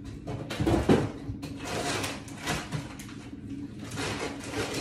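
Rummaging through kitchen storage: a heavy thump about a second in, then irregular rustling, scraping and knocking as things are shifted about in a search.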